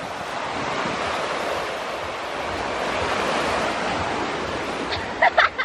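Sea waves breaking and washing onto a sandy beach: a steady rush of surf that swells and eases.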